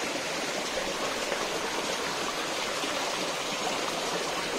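Steady, even rush of water from a small forest waterfall and stream, running low.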